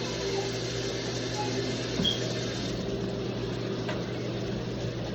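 A steady low mechanical hum under even room noise, with a faint click near the end.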